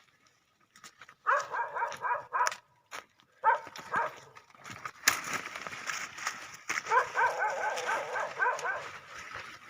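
Goat kid bleating: several quavering bleats, with a longer run of them through the second half. These are the calls of a hungry kid wanting milk.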